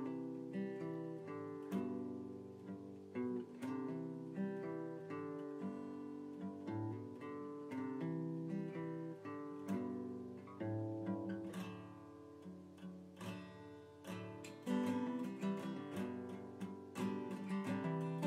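Background music led by acoustic guitar, a continuous run of plucked notes.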